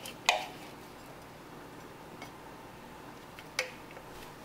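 Three sharp taps as the clear plastic bowl of a Cuisinart mini chopper is knocked and shaken to empty ground cashews onto a ceramic plate. The loudest comes just after the start; the last, about three and a half seconds in, rings briefly.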